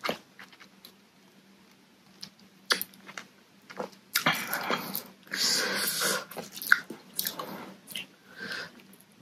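A person eating papaya salad with her fingers, heard close up: wet chewing, lip smacks and finger-licking. It is quiet for the first two seconds or so, then comes in several louder bursts.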